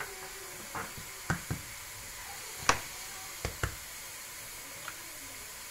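Eggs being tapped and cracked against the rim of a glass mixing bowl: a few sharp knocks, the loudest about two and a half seconds in, over a steady faint hiss.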